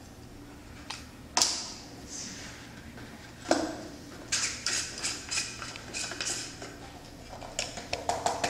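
Light clicks and knocks of objects being handled: a few single ones, then looser runs of rattling clicks, quickening near the end, over a faint low hum.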